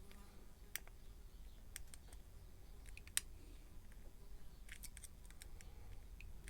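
Faint, scattered metallic clicks and ticks of a lock pick and tension wrench working the pins of an Evva euro cylinder held in a false set. One sharper click comes a little past three seconds in, and a few quick ticks follow near five seconds.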